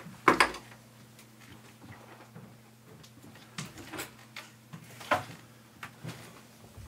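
A panelled closet door being opened: a sharp knock of the knob and latch just after the start, then a few scattered knocks and bumps of handling, the loudest about five seconds in.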